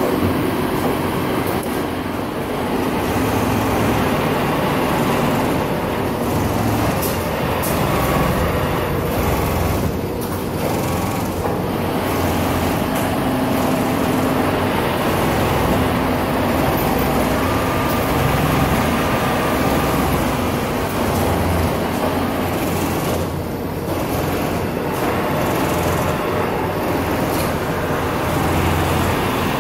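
Steady machinery noise of a garment factory floor: a continuous low hum under a broad hiss.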